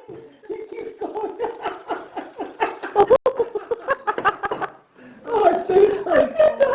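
A baby laughing in quick, repeated high-pitched giggles, pausing briefly about three seconds in and again near five seconds before laughing again.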